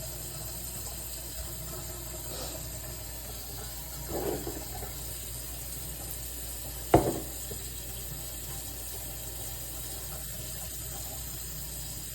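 Steady background hiss with a low hum; a brief muffled sound about four seconds in and a single sharp knock about seven seconds in.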